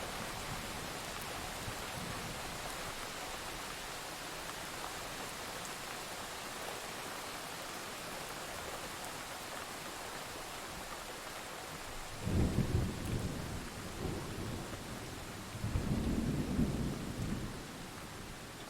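Steady rain falling, with two rolls of thunder rumbling low, one a little past the middle and a second a few seconds later, each lasting about two seconds.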